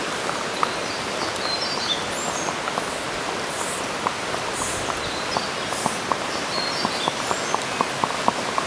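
Horse hooves knocking at a walk, a few short sharp knocks a second that grow more frequent in the second half, over a steady hiss, with a few high bird chirps.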